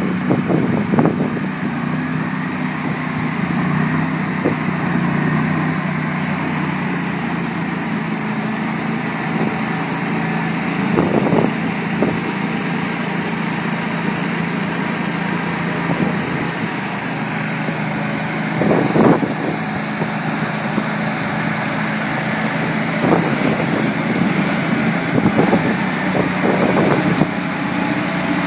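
Argo 8x8 amphibious ATV's engine running steadily at a constant pitch, with a few short swells in level now and then as the machine works in thick muck.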